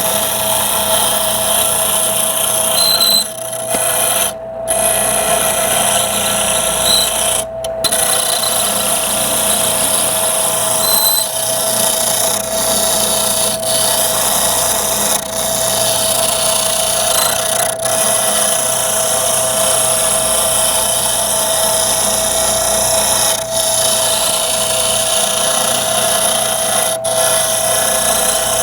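Wood lathe spinning a wenge blank while a carbide-tipped Easy Wood Tools turning tool cuts it toward a cylinder: a steady hum under a continuous scraping hiss. The cutting noise breaks off briefly about four and seven and a half seconds in, as the tool comes off the wood.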